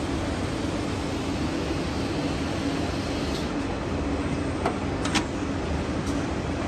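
Woodmaster CNC machining centre with a tilting saw-blade head running, a steady mechanical hum and hiss. Two sharp clicks come in quick succession a little past the middle.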